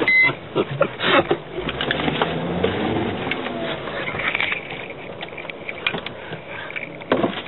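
Inside the cabin of a Mercedes ML 270 driving over rough, muddy ground: the engine runs under a jumble of knocks and rattles as the body jolts, thickest in the first second and again near the end, with mud and water splashing up against the windscreen. A short run of beeps cuts off right at the start.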